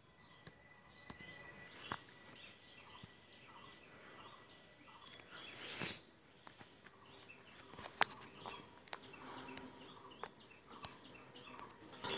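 Faint birds chirping in the background, many short high calls one after another, with a few sharp clicks at about 2, 6 and 8 seconds in.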